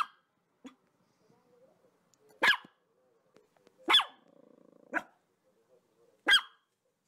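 Labrador retriever barking: single sharp barks a second or two apart, about five in all, with a low growl right after the bark about four seconds in.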